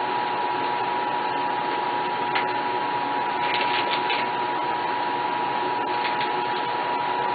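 A running machine: a steady hiss with a constant high whine, and a few faint clicks.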